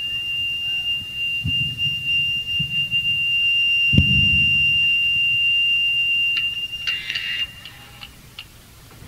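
A single high, steady feedback whine rings from the band's amplifiers at the close of a song, with low thuds about a second and a half in and again at four seconds. Near seven seconds a short noisy burst comes and the whine cuts off, leaving faint room noise.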